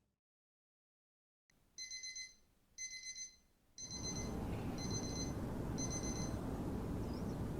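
Electronic alarm beeping: five short bursts of a high, steady tone about once a second, starting about a second and a half in. From about four seconds in, a steady rushing background noise sets in beneath them.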